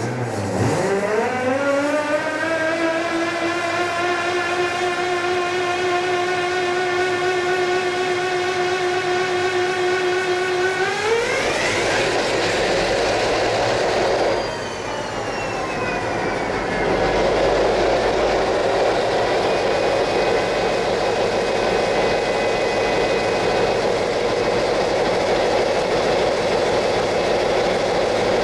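Class 57 locomotive's EMD two-stroke diesel engine starting up. A whine rises and settles into a steady drone, then climbs steeply about eleven seconds in and falls away as the engine catches. It then runs on steadily at idle.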